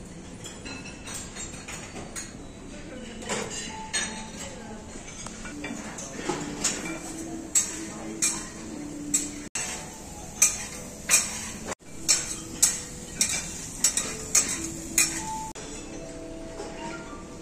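Plates and cutlery clinking in a buffet dining room, a string of sharp clinks through the middle, over a low background murmur.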